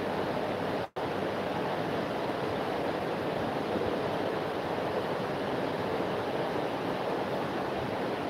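Steady, even rushing noise like air blowing across a microphone, with no distinct tones. The sound cuts out completely for an instant about a second in.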